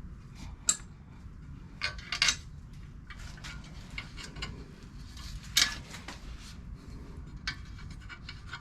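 Scattered sharp metallic clinks and taps, a handful of them, the loudest near the start, around two seconds in, and just past the middle: metal patio-table parts being handled during assembly.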